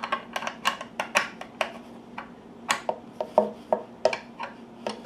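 Metal wrench clicking and clinking against the nut and truss-rod hardware inside an acoustic guitar's body. The sound is a run of irregular sharp clicks, several a second.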